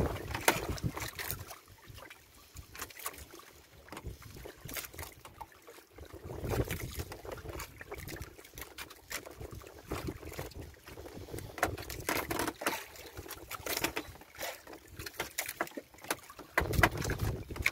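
Wind buffeting the microphone in gusts, over water lapping against the hull of a small outrigger fishing boat at sea, with irregular small knocks.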